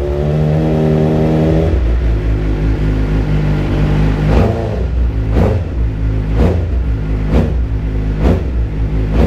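Suzuki GSX-R 750 inline-four with a full Akrapovic exhaust, running and being revved on the throttle. One rev rises and falls in the first two seconds, then short throttle blips come about once a second from about four seconds in.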